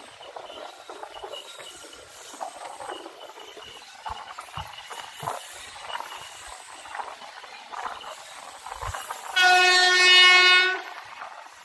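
Passenger train running over the track with rattles and scattered knocks from the coaches. About nine seconds in, the WAP-4 electric locomotive's horn sounds one loud, steady blast of about a second and a half.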